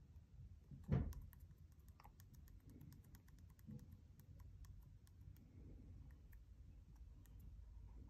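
Faint, quick fingertip taps on an MHK2 thermostat's touchscreen, many in a row, as the date is stepped forward one day at a time. A single louder soft thump comes about a second in.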